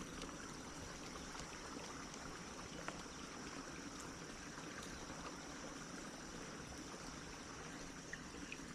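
A creek running high, its water flowing steadily and faintly, with a thin steady high tone underneath and a few small clicks.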